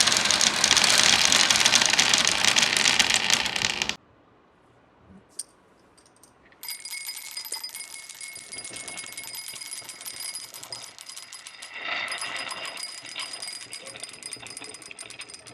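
Marbles rolling and clattering down a wooden HABA marble run: dense, rapid clicking for about four seconds that cuts off suddenly, then after a short silence a quieter run of clicks.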